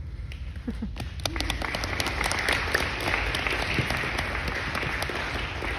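Audience applauding: a few scattered claps at first, swelling within about two seconds into dense, sustained applause.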